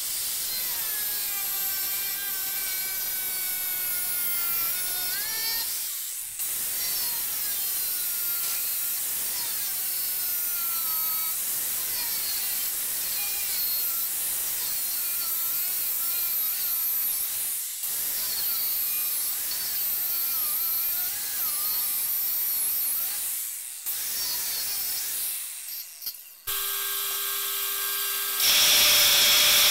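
Angle grinder with an abrasive disc grinding the steel edge of a forged hot cut hardy held in a vise: a high whine that wavers in pitch as the disc bears on the work, stopping and restarting a few times. Near the end a different machine takes over with a steady hum.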